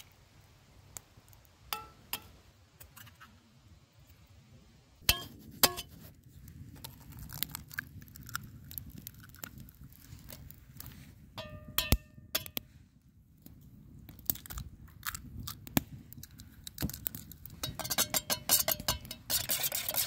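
Stainless steel camping pots and a metal bowl clinking and knocking as they are handled, with one brief ringing tone about halfway through. Near the end comes fast, steady clicking of a utensil whisking eggs in the steel bowl.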